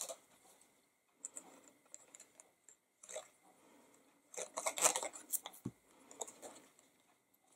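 Quiet rustling and rubbing of a strip of embossed cardstock being handled and spread with liquid glue from a squeeze bottle, busiest a little past the middle, then a soft knock as the glue bottle is laid down on the mat.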